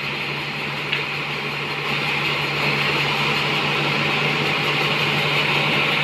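Large band sawmill running, its blade cutting steadily through a trembesi (rain tree) log over a steady motor hum. A small click about a second in, and the cut gets a little louder about two seconds in.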